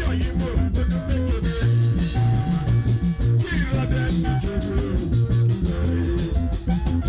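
Band music with a prominent bass guitar line, guitar and drums keeping a steady, even beat.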